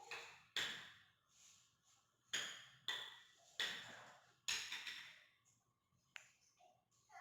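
A series of about six sharp knocks and bangs, irregularly spaced, each with a short ringing tail, like hard toys or household objects being struck together.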